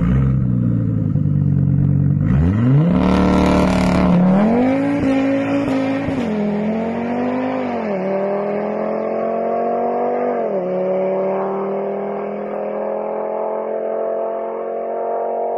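Audi S3 with a full 4-inch aftermarket exhaust, its turbocharged four-cylinder idling and then revved several times in quick succession, the pitch climbing and dropping with each rev and a brief noisy rush on the first. After that the engine holds a steady, higher note that climbs slowly.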